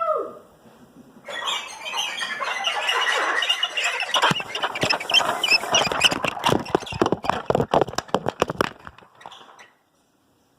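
A train passing right over the camera: a rising rush of noise, then fast clattering of wheels that slows and spaces out before stopping about nine seconds in.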